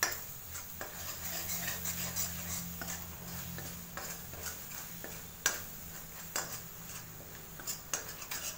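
Metal spoon stirring and scraping thick masala paste around a metal kadai, with scattered sharper clinks of spoon on pan, the loudest about five and a half seconds in. A low steady hum runs underneath.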